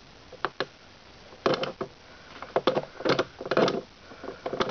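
An irregular series of short clicks and knocks in small clusters, the loudest about a second and a half and three and a half seconds in.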